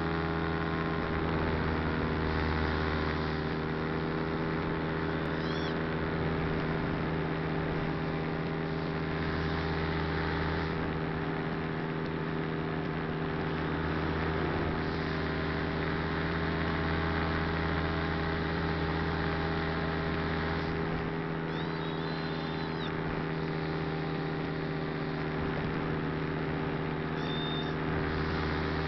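Small motor and propeller of a model aircraft running steadily, a constant droning whine with rushing air, its lowest notes swelling and fading every few seconds.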